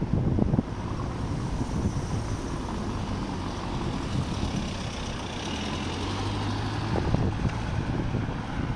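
Strong wind buffeting the microphone: a low, uneven rumble that comes and goes in gusts.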